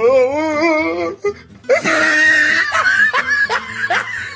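Comedy meme sound effect: a wavering, warbling tone with a fast vibrato, sliding slowly downward, lasting about a second and a half. It is followed by loud, rapid laughter in quick bursts.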